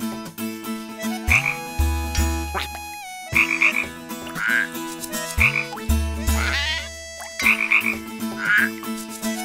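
Cartoon frog croaking in a regular repeating pattern. Deep, throaty low croaks alternate with quicker higher-pitched ribbits, the cycle coming round about every four seconds.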